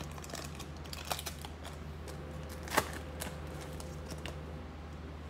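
Basketball trading cards being handled and flipped through by hand: a scatter of light clicks and snaps, with one sharper snap a little under three seconds in.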